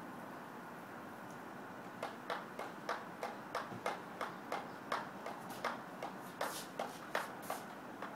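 Small handheld pump pressure sprayer being pumped by hand: short, quick strokes about three a second, starting about two seconds in.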